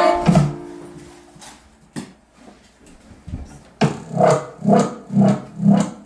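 Music: a song ends on a held chord, a short lull with a couple of knocks follows, and then a new track starts, a pulsing synth beat at about two beats a second.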